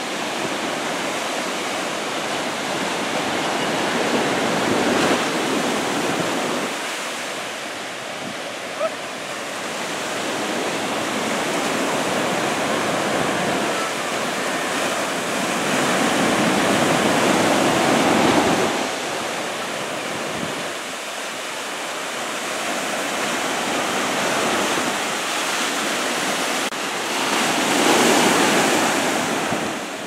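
Ocean surf from a waist-high typhoon swell breaking on a sandy beach: a continuous rushing hiss that grows louder three times as waves break and wash in. A single brief click comes about nine seconds in.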